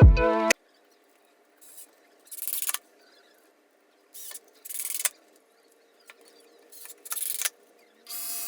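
Background music cuts off about half a second in. Then come about five short, irregular hissing strokes a second or more apart, with near silence between them.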